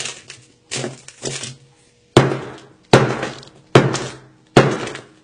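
A hammer striking a Samsung Galaxy S7 Edge smartphone, its already shattered glass crunching. Softer crunching comes in the first second and a half, then four hard blows follow about a second apart from two seconds in.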